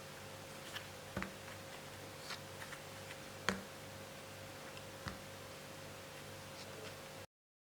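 A few light, irregular clicks and taps over a steady hiss and faint hum, the sharpest about halfway through; near the end the sound cuts off abruptly to total silence.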